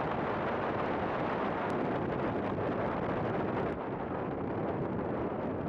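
Steady wind rush and rumble on the microphone of a camera mounted on a moving motorcycle riding at road speed.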